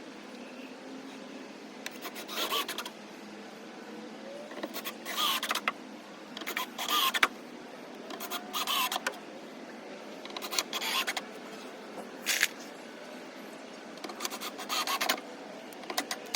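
A power drill running in a string of short bursts, each about a second long, with a rising-and-falling whine.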